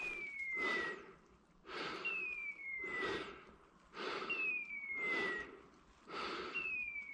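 A dog's electronic beeper collar sounding a falling tone about every two seconds, the repeated signal such collars give when the dog has stopped on point. Under it, a person breathes hard close to the microphone.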